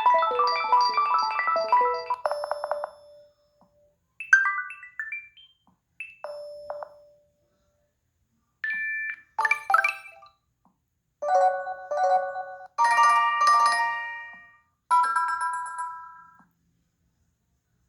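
Google Pixel 3a preloaded ringtones playing one after another: a short melodic phrase ending on a held note near 3 s, then half a dozen brief, separate jingles with silent gaps between them.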